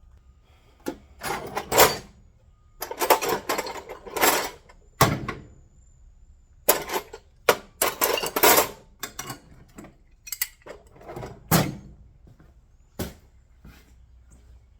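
Handling noises: an irregular string of short rustles, scrapes and knocks, with pauses between them.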